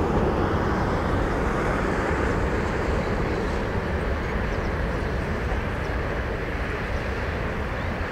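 Jet noise from the four CFM56 turbofans of an Airbus A340-300 climbing away after takeoff: a steady, even rumble that slowly fades as the airliner recedes.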